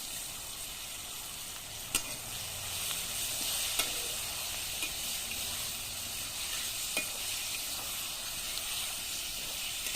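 Chicken pieces sizzling as they fry in hot oil in a kadai with chopped onion, green chilli and carrot: a steady frying hiss, with a few sharp clicks from the pan about two, four and seven seconds in.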